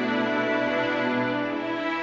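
Background music of long held notes, with a change of chord near the end.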